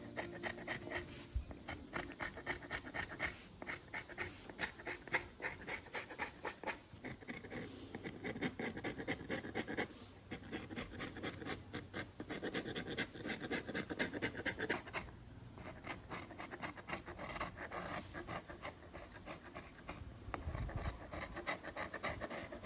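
A hand tool working wood in quick, rhythmic strokes, about four a second, with a few short pauses.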